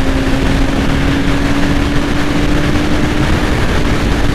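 2005 Yamaha R6's inline-four engine running at freeway cruising speed: a steady hum that creeps slightly up in pitch, under heavy wind noise.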